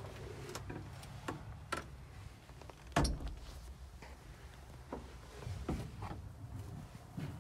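Handling clicks and knocks inside a vehicle's cab as a handheld camera is moved around the seats and door, with one louder thump about three seconds in, over a low steady rumble.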